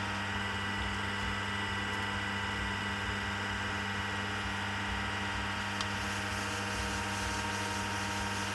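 Electric potter's wheel running at a steady speed, its motor giving a constant even hum.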